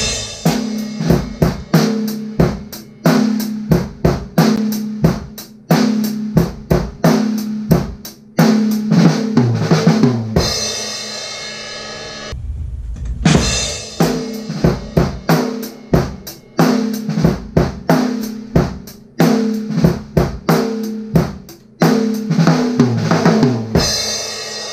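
Drum kit played in two takes of a beat that builds into a fill and ends on a ringing crash cymbal. There is a short break about twelve seconds in between the takes. The snare strokes ring with a clear tone.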